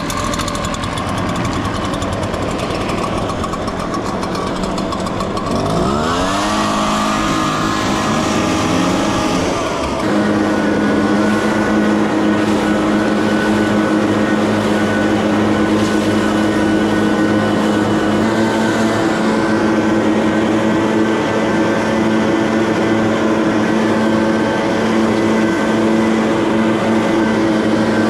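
Two-stroke chainsaw engine running after being primed and started. It runs at low speed, then from about six seconds in the revs climb over a few seconds and settle into a steady high-speed run.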